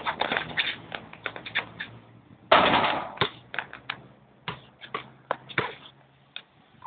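Basketball being dribbled on a hard outdoor court amid quick footsteps: a run of sharp, irregular slaps and taps. About two and a half seconds in comes the loudest sound, a brief noisy rush. After that come a few spaced single bounces, as after a shot.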